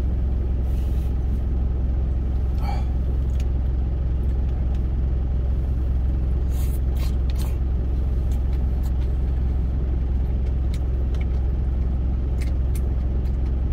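Truck engine idling with a steady low rumble, heard from inside the cab. A few light clicks of wooden chopsticks against a steel food container come through now and then.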